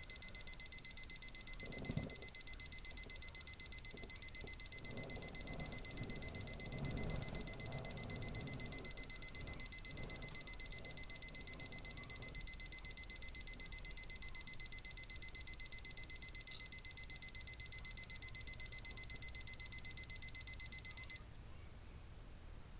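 Unbranded LCD digital alarm clock's alarm ringing: a rapid, high-pitched electronic beeping pulsing several times a second, which cuts off suddenly near the end.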